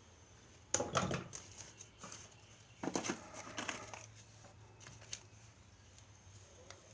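Small tools and hardware being rummaged through in an old toolbox: two clusters of clinks, knocks and rustling, about a second in and about three seconds in, with a few lone clicks after, over a faint steady low hum.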